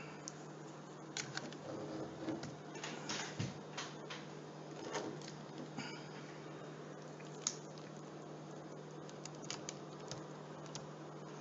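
Small screwdriver working screws out of the underside of a Dell Latitude laptop, with scattered light clicks and short scrapes of metal on plastic over a steady low hum.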